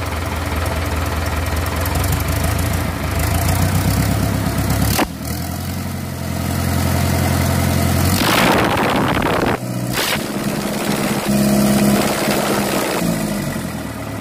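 Mitsubishi PS120 marine diesel engine running on a test stand as the throttle is raised, its speed changing several times: a sudden change about five seconds in, a rougher, noisier stretch from about eight seconds in, and the pitch falling away near the end.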